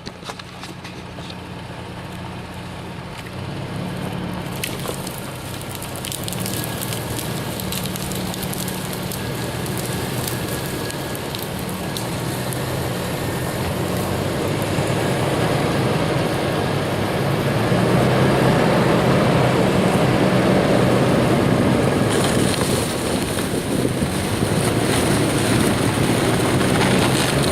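Toyota Tacoma pickup's engine running slow and steady in four-wheel drive low as it drags a long log, with the crackle and scrape of the log and brush dragging over the ground. The sound grows steadily louder and is loudest in the second half.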